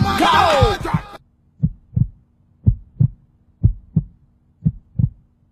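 A hip hop track cuts off about a second in. A heartbeat sound effect follows: paired lub-dub thumps about once a second over a faint steady hum.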